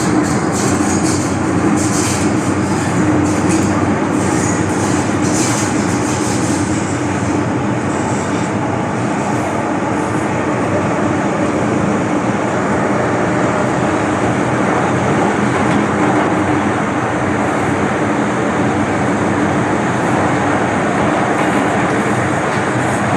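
MTR M-train electric multiple unit running between stations, heard from on board: a steady rumble and hiss of wheels on rail and running gear. A scatter of sharp high clicks comes through over the first several seconds, then eases off.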